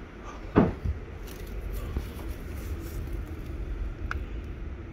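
Hurricane-force wind outside the house, a steady low rumble likened to a freight train coming through. A single sharp thud about half a second in, and a faint click near the end.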